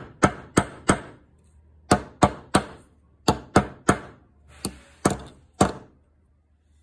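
A hammer driving nails through a metal bracket into a wooden block: about a dozen sharp strikes, in quick groups of three with short pauses between the groups.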